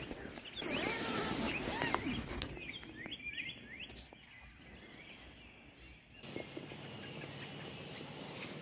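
Morning songbirds chirping and singing, several short calls overlapping, busiest in the first three seconds. About six seconds in, the background changes suddenly to a steadier outdoor hiss with fainter birdsong.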